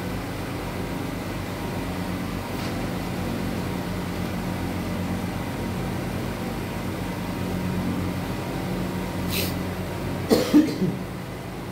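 A steady low machine hum fills the room. Near the end there is a sharp click, then a brief cough.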